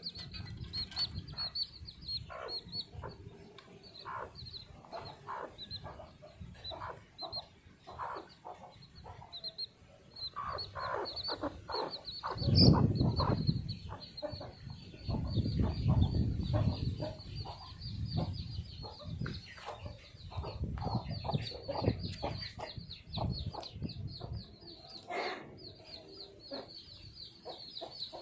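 A group of baby chicks peeping continuously in rapid, high-pitched cheeps, with lower chicken calls mixed in. There are bouts of low rumbling about halfway through.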